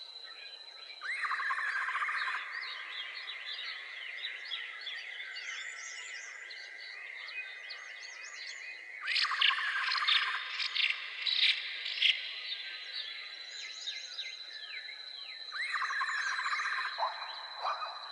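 Steady high-pitched insect trill running throughout, overlaid with many short chirping animal calls that come in louder bursts about a second in, around the middle, and near the end.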